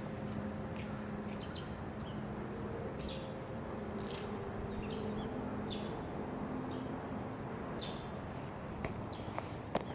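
Short, high chirps from a bird, repeated every second or so over a steady low hum.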